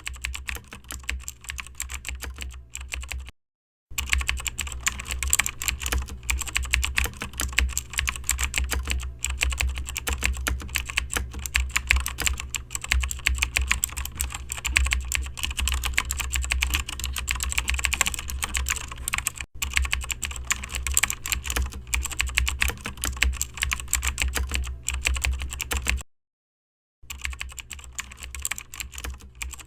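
Fast, continuous typing on a computer keyboard: a dense stream of key clicks over a low steady hum. It cuts out completely twice, briefly, a few seconds in and again near the end.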